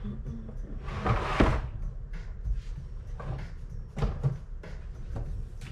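Kitchen cupboard door opening with one brief rushing scrape about a second in, followed by a few light knocks and clicks as spice jars are rummaged for refills.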